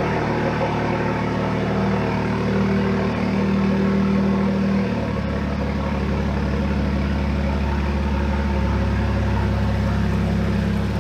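BMW 3 Series sedan's engine running as the car creeps forward and pulls up. Its low, steady note shifts about five seconds in and again a few seconds later.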